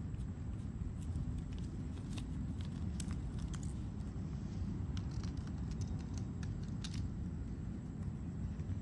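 A cat licking and eating wet food from a plastic pouch held to its mouth, making scattered small clicks and crinkles that are thickest in the middle. Under them runs a steady low rumble.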